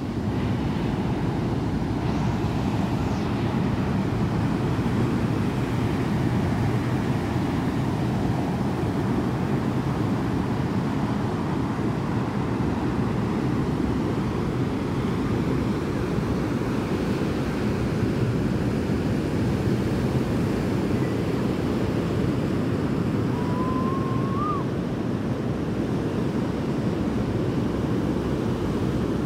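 Ocean surf breaking on a sandy beach, a steady wash of noise mixed with wind rumbling on the microphone. A single short, rising whistle-like sound cuts through about three-quarters of the way in.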